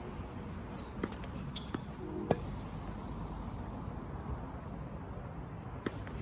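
A tennis ball being hit back and forth with rackets during a rally: a few separate sharp pops, the loudest about two seconds in and one more near the end.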